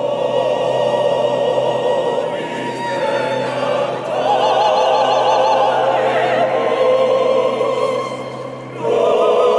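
Male voice choir singing sustained chords with vibrato in a large stone cathedral. The sound swells into a louder phrase about four seconds in, dips briefly, and swells again near the end.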